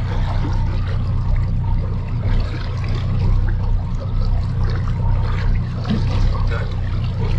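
Boat motor idling steadily, a constant low hum with water noise over it.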